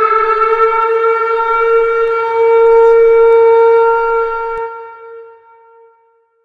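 Civil defense siren sounding a nuclear attack warning: one steady high note that swells around the middle, then fades away over the last two seconds.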